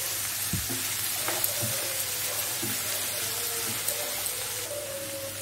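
Sliced onions, tomatoes, garlic cloves and cashews sizzling steadily in butter in a frying pan over a low flame. A spatula stirring the mix knocks and scrapes against the pan a few times.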